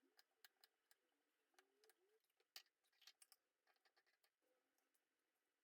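Knife cutting pineapple into small cubes on a cutting board: faint, irregular ticks and taps as the blade goes through the fruit and meets the board.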